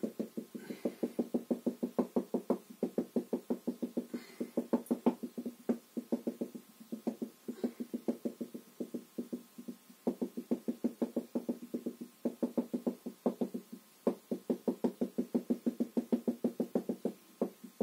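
Marker pen tapping dots onto a whiteboard to stipple in a drawing: quick, even taps about five a second, in runs broken by brief pauses.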